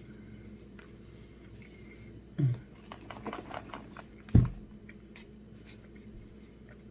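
A person eating crunchy food close to the microphone: a quick run of crisp crunches about three seconds in, between two short, low sounds that fall in pitch, the second one the loudest.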